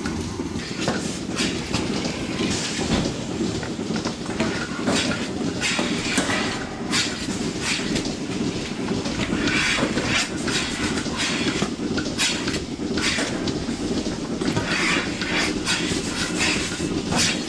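Milking parlour machinery running: a steady low rumble with frequent irregular hisses and clacks from the milking units as teat-cup clusters are handled and attached to the cows.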